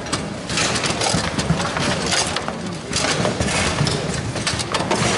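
Table football game in play: irregular sharp clacks of the ball and plastic figures striking and rods knocking, over the steady murmur of a busy hall.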